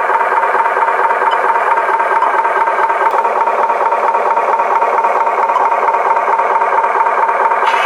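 Battery-powered toy truck running: a steady buzzing hum with a constant whine, unchanging throughout.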